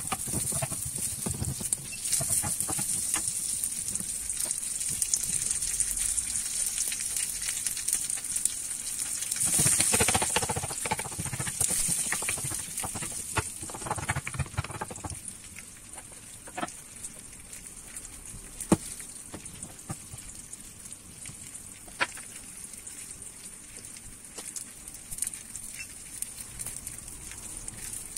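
Diced Hungarian bacon sizzling and crackling as it renders its fat in a steel wok, scraped and stirred with a wooden spoon for about the first half. After that the fat keeps hissing more quietly, with a few sharp pops.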